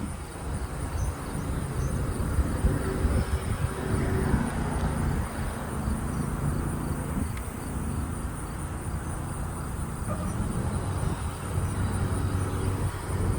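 Outdoor background sound: a low rumble of traffic, with a steady high-pitched insect drone running under it.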